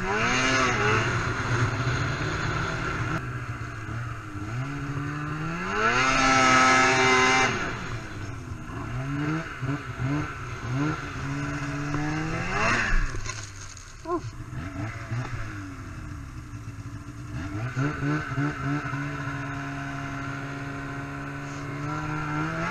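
Snowmobile engine revving up and down repeatedly as the sled is ridden hard through deep snow, its pitch climbing steeply twice and dropping between, then holding steadier near the end.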